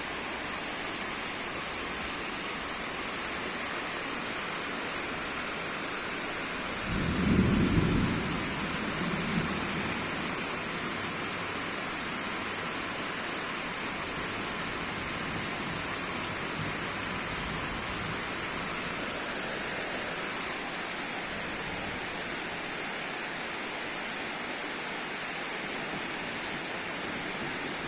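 Heavy rain falling steadily. A low rumble of thunder comes about seven seconds in, with a fainter one a couple of seconds later.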